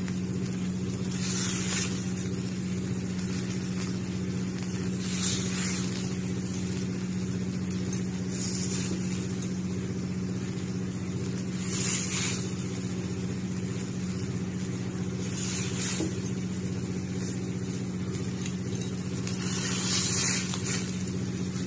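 Short sizzling hisses from oil on a hot iron tawa as bitter-leaf cutlets are laid down to shallow-fry, about six of them spaced three to four seconds apart, over a steady low hum.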